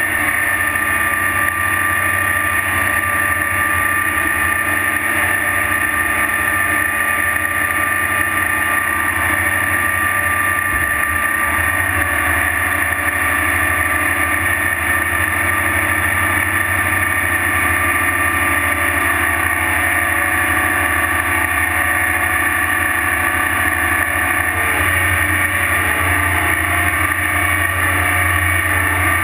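Heavy diesel earthmoving equipment, a crawler tractor towing a scraper, running steadily under load as the scraper bowl loads dirt: a constant deep engine drone with a steady high whine above it.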